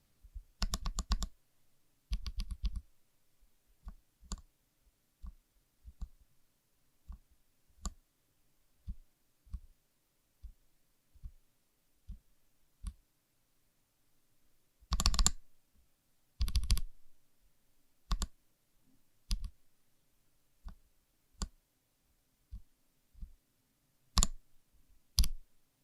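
Gateron Ink Kangaroo tactile mechanical keyboard switches clacking as keys are pressed and released. Single keystrokes come about once or twice a second, broken by quick rattling runs of rapid presses near the start, in the middle and near the end.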